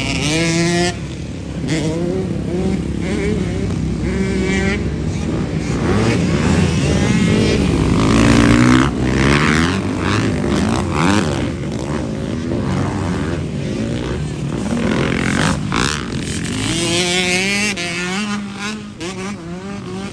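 Several dirt bike engines racing around a motocross track, overlapping as they rev up and back off through the gears, with the pitch rising and falling all the way through. The bikes are loudest about eight to nine seconds in.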